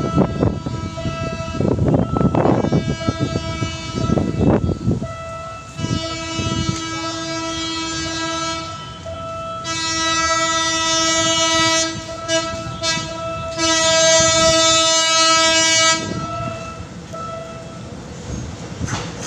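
Horn of an approaching PNR diesel multiple unit sounding in several long blasts from about six seconds in, the last one ending near the end. It follows a few seconds of loud, irregular rail noise.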